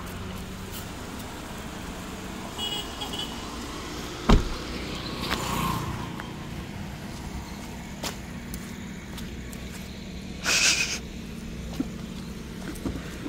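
A car driving, with a steady low rumble of engine and road noise. There is a sharp knock about four seconds in and a brief hiss about ten and a half seconds in.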